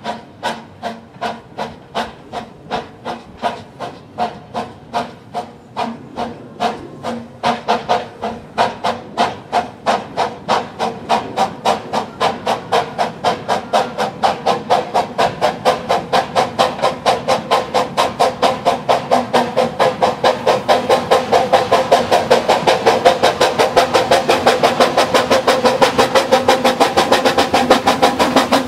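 Quarry Hunslet 0-4-0 saddle tank steam locomotive chuffing as it pulls away and comes closer: sharp exhaust beats with a hiss, quickening from about two a second to about four and growing louder toward the end.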